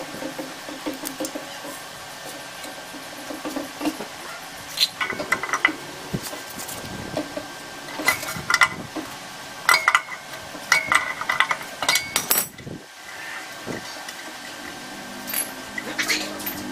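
Wrench and rusted steel fittings of an old air-compressor tank clinking and scraping as a fitting assembly is worked loose. Scattered sharp metallic clinks, thickest in the middle stretch.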